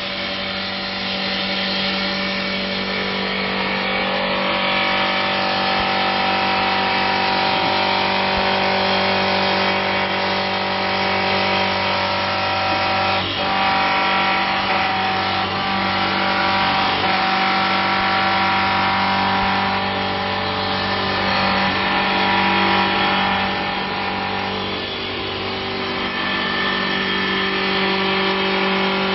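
Multi-spindle CNC wood lathe with rotary carving spindle running, turning several wooden baluster columns at once: a steady machine hum with several constant tones under the hiss of the cutters working the wood.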